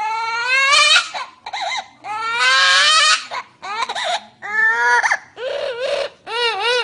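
Baby crying hard: a string of about seven loud, high-pitched wails, the longest about a second each, with short breaks between them.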